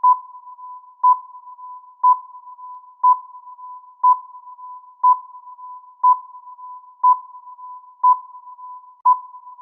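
Countdown timer sound effect beeping once a second: a short, loud electronic beep at a single mid pitch each second, about ten in all, with a much fainter tone at the same pitch lingering between beeps.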